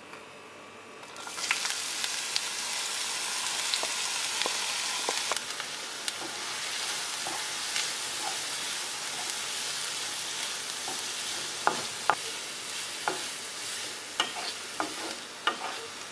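Chopped onions going into hot oil in a kadai, setting off a sudden sizzle about a second in that then carries on steadily as they fry. A spatula stirs them, with sharp knocks and scrapes against the pan that come more often near the end.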